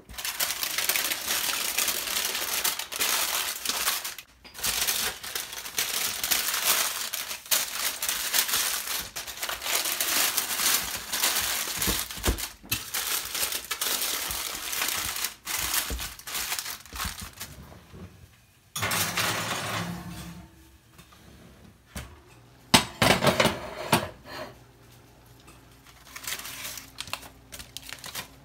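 Aluminium foil and parchment paper crinkling and rustling as they are folded and crimped by hand over a baking dish to cover it. About two-thirds of the way through it turns quieter, with a few sharp clicks and knocks.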